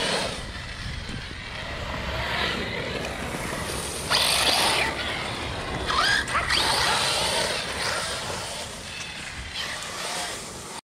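Arrma Outcast 6S RC truck driving, its brushless motor whining up in two short bursts of throttle, about four and six seconds in, over a steady noise of tyres and ground.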